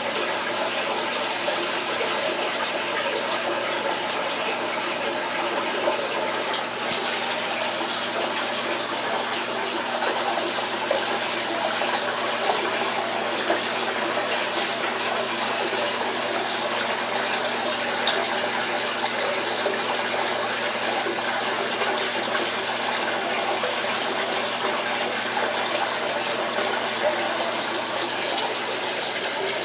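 Steady running, splashing water in an aquarium, with a faint steady hum underneath.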